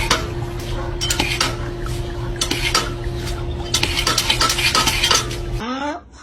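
Dishes and metal utensils clinking and clattering again and again over a steady low hum; the sound cuts off abruptly near the end.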